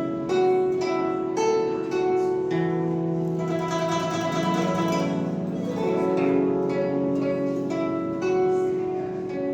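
Guzheng with 26 strings playing a melody: a run of plucked notes ringing on over low held notes, with a bending glide in pitch about halfway through.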